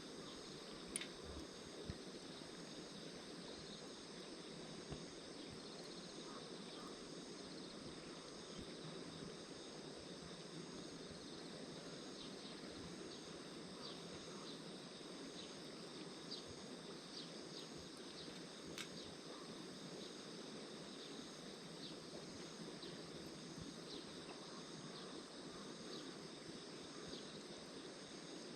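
Insects trilling steadily in a low, even outdoor background noise, with a few faint sharp ticks scattered through.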